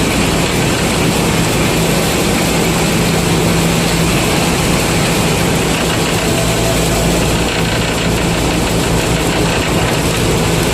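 Combine harvester engine running steadily, a constant low-pitched drone under an even mechanical noise.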